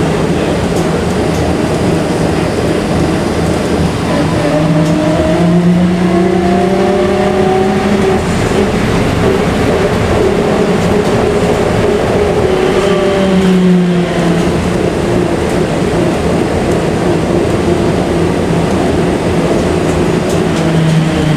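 Škoda 14Tr01 trolleybus heard from inside the cabin while under way: the electric traction drive's whine rises in pitch as it speeds up, a few seconds in, and falls again as it slows, over steady road and body rumble.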